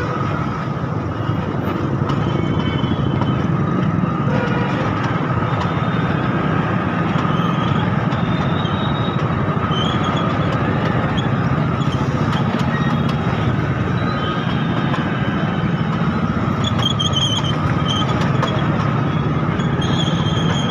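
Dense road traffic crawling in a jam: many motorcycle and scooter engines and a bus engine running together in a steady mix, heard from a motorcycle in the middle of it.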